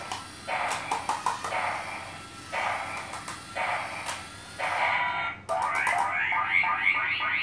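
Electronic sound effects from a battery-powered toy robot's small speaker: a string of short bursts about a second each, then a longer run of rapid, repeating chirps from about five seconds in.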